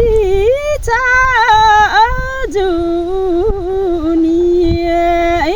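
A woman singing a Nepali song unaccompanied, in a slow, ornamented melody that bends and wavers, holding one long steady note over the second half.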